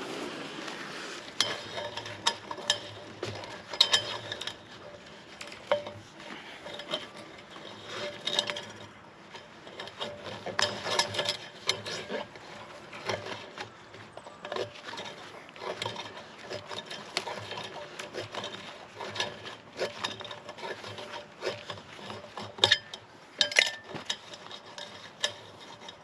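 Plain fencing wire being wrapped by gloved hands around a galvanised steel strainer post to tie it off: irregular rubbing and scraping of wire on metal, with many small clicks and ticks.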